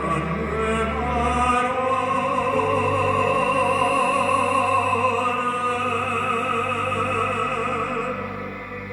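Classical-style music: a voice sings in operatic style, holding long notes with vibrato over a low sustained bass, which changes note about a second and a half in.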